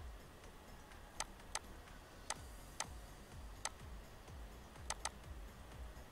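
Computer mouse clicking: seven sharp, separate clicks at irregular intervals, with a quick double click about five seconds in.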